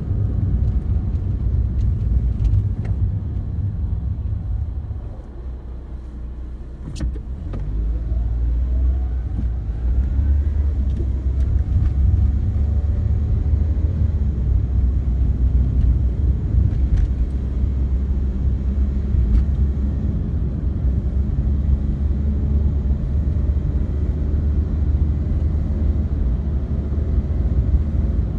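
Car engine and road rumble heard from inside the cabin while driving. The rumble drops quieter for a few seconds about five seconds in, then builds again with a rising engine note as the car picks up speed, and a single sharp click sounds about seven seconds in.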